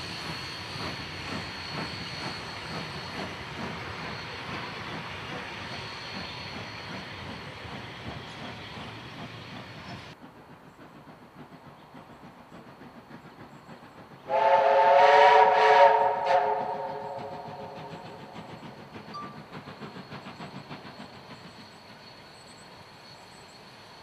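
Heritage passenger carriages rolling past over the rails, then a loud blast of the C35 class steam locomotive 3526's whistle, several notes at once for about two seconds with short breaks. After the whistle comes the faint, even chuff of the locomotive working in the distance.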